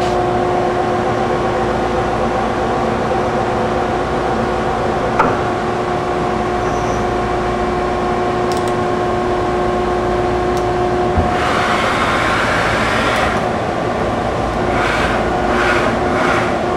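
Okuma & Howa Millac 5VA CNC vertical machining center running its warm-up cycle: a steady whine with a short click about five seconds in. About eleven seconds in the whine stops with a click, and spells of hissing follow.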